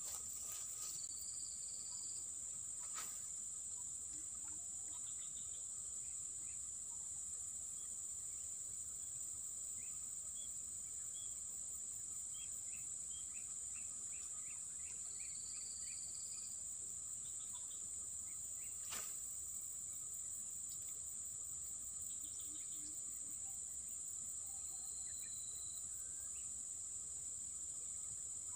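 A chorus of insects makes a steady high-pitched drone, with a few faint, short bird chirps. Two sharp clicks stand out, about three seconds in and again at about nineteen seconds.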